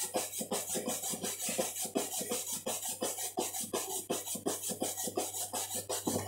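Bristle shoe brush buffing wax polish on a leather moccasin in rapid back-and-forth strokes, about five scratchy swishes a second, raising the shine.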